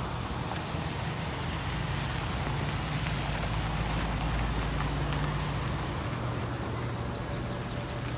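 Ford Transit van driving slowly past on a gravel drive: a steady low engine tone with tyre noise on the gravel, a little louder in the middle as it goes by, then easing off as it pulls away.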